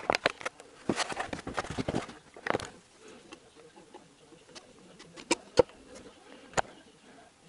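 Metal engine parts and tools being handled by hand during reassembly of a VAZ 2111 engine's crankshaft and connecting rods: a flurry of clicks and rustle in the first two seconds, a knock, then three sharp metallic clicks in the second half.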